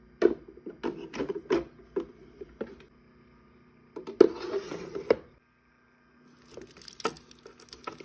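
Snacks and drink containers being handled and set down while a mini fridge is restocked. A quick run of clicks and knocks comes first, then a rustling burst about four seconds in, then more light clicking.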